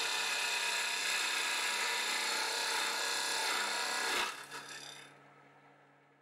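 Turning tool cutting a wooden lid spinning on a wood lathe: a steady scraping hiss of the cut that stops about four seconds in and fades away.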